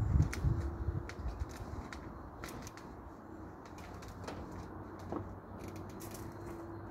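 Someone climbing down a telescopic aluminium ladder: heavy footfalls on the rungs in the first second, then scattered light metallic clicks and taps as hands and feet move on the ladder.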